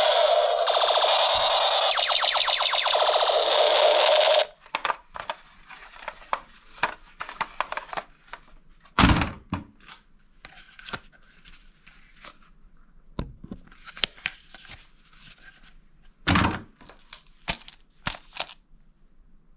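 A battery-powered toy gun plays a loud electronic firing sound effect for about four and a half seconds, then cuts off suddenly. After that, plastic toy guns knock and clatter as they are handled and set down in a cardboard box, with a few louder thunks.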